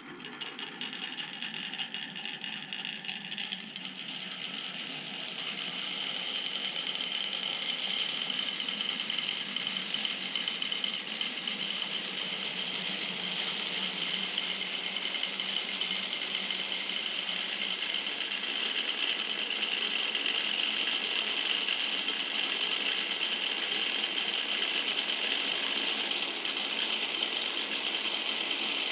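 Many glass marbles rolling and clattering down a wooden marble run: a dense, continuous rattle of small clicks that starts at once and grows thicker and louder about five seconds in.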